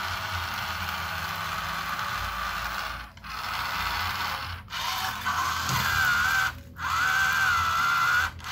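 A toy dump truck's small geared motor whirring steadily as it tips the bed and pours out kinetic sand, stopping for a moment about four times. A wavering high tone joins about halfway through.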